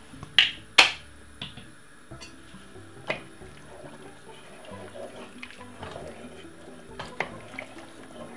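A wooden spoon stirring a pot of chicken stock, the liquid sloshing, with a few sharp clicks of the spoon against the pot. Two loud, sharp sounds about half a second apart come near the start.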